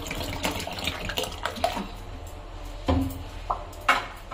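Water poured from a plastic bottle into a pot of boiling rice, splashing and bubbling, with two sharp knocks about a second apart near the end.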